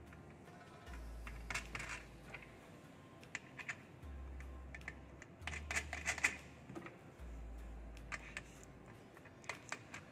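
Scattered light clicks and taps of hands handling the plastic cover and metal wing nuts of an impact-of-jet apparatus's weight platform on its clear cylinder, in small clusters.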